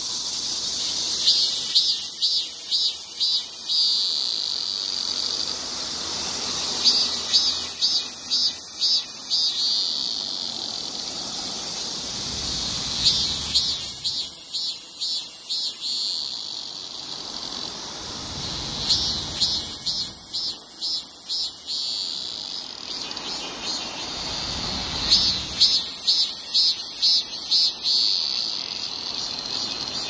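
Cicada singing: a steady, shrill, high-pitched drone broken about every six seconds by a phrase of roughly five pulsing notes, repeated five times.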